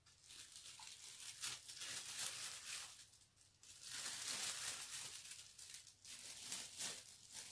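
Rustling and crinkling handling noise, in stretches of a couple of seconds broken by short pauses, about three seconds in and again around six seconds.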